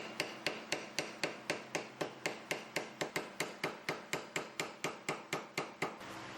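Hammer tapping on metal in an even rhythm of about four strikes a second, each blow ringing briefly, stopping about six seconds in.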